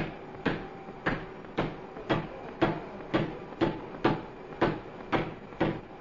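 Steady rhythmic mechanical knocking: a sharp stroke about every half second, each with a short ringing tail.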